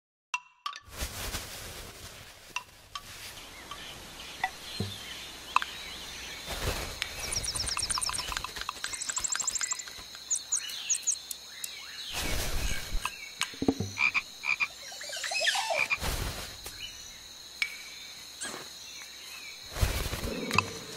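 Tissue paper rustling and crumpling in short bursts, with animal-call sound effects laid in: quick high chirps like a small bird's around the middle.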